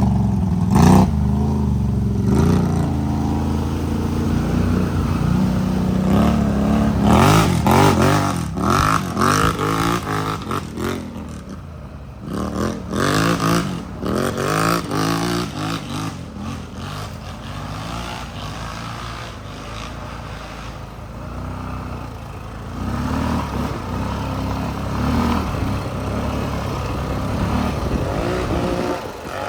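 ATV engine running under way on a dirt trail, its revs rising and falling again and again as the throttle opens and closes, with knocks and rattles from the rough ground. It eases off about halfway through, then picks up again near the end.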